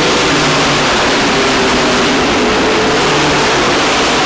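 Engines of racing pickup trucks running at speed on a dirt oval, a loud, steady drone of more than one engine.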